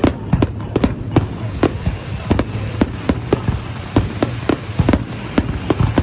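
Fireworks shells bursting in rapid succession, about three sharp bangs a second over a continuous low rumble of overlapping booms.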